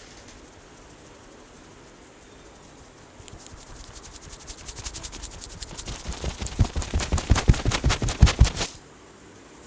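Rapid hand slaps and taps on a head during an Indian head massage. The quick series starts about three seconds in, builds steadily louder, then stops abruptly.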